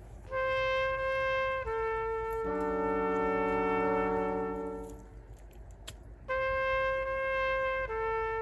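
Music with a brass sound: a held note steps down and swells into a sustained chord, which breaks off. About six seconds in, the same phrase starts again.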